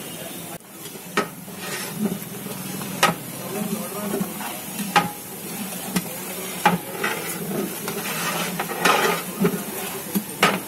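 Sliced onions frying in oil in a large aluminium pot, sizzling steadily, stirred with a long-handled flat metal ladle that knocks sharply against the pot about five times.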